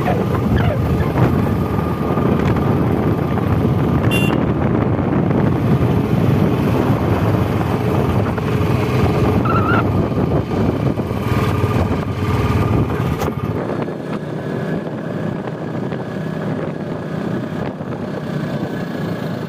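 A road vehicle running along the road, heard from on board: steady engine and road rumble with wind noise. The low rumble eases off about 13 seconds in, and a short high chirp sounds about four seconds in.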